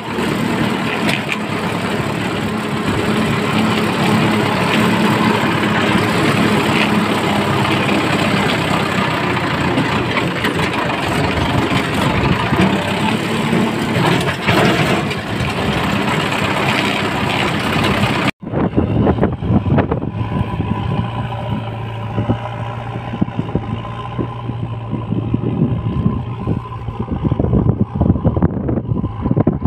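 Indo Farm 3055 DI turbo tractor's diesel engine running under load while pulling a heavily loaded trailer, loud and steady from the driver's seat, then heard from beside the field after a sudden cut about 18 seconds in.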